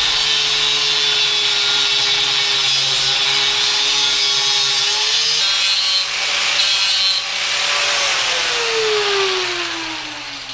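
Angle grinder cutting through steel, the motor running steadily under load. About eight seconds in it is switched off and winds down with a falling whine.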